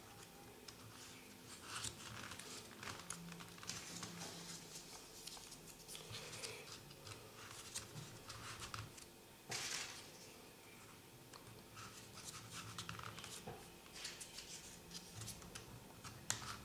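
Faint rustling and scratching of folded paper as 3D origami triangle units are pushed into place, with one louder paper scrape about ten seconds in.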